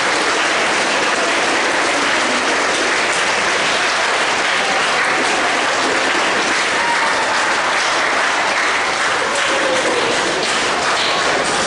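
An audience of students applauding steadily, with a few voices calling out over the clapping in the second half.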